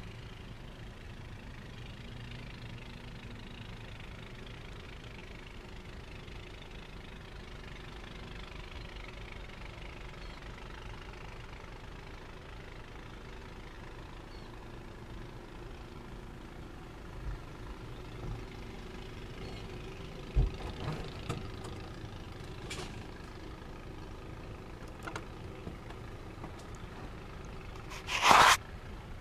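A steady low machine hum, with a few knocks and clicks in the second half and a short, loud burst of noise near the end.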